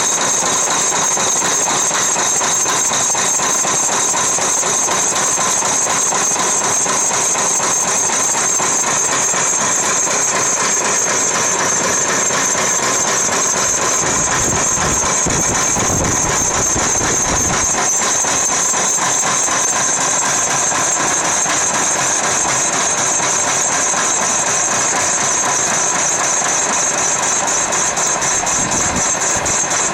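Small CNC mill running with its 800 W water-cooled spindle giving a steady high-pitched whine, and a lower rumble about halfway through.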